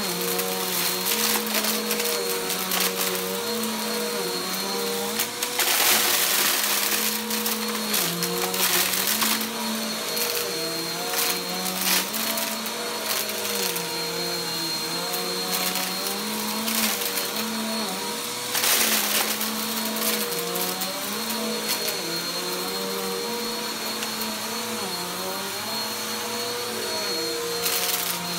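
Upright vacuum cleaner running on carpet, its motor note rising and falling with each push and pull stroke. Short bursts of crackling and rattling come as lint and small crunchy debris are sucked up, the loudest about six seconds in and again near nineteen seconds.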